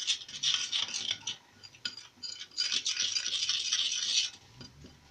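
Wooden skewer stirring and scraping quickly around a container of flour and water, a rapid scratchy clatter that pauses briefly about two seconds in and stops about a second before the end.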